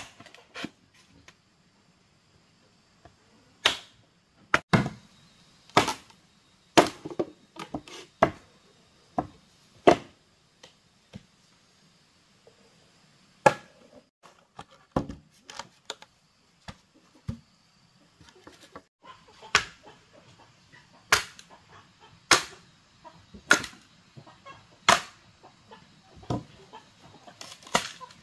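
Sharp knocks struck irregularly, usually one to two seconds apart with a short pause partway through, with chickens clucking nearby.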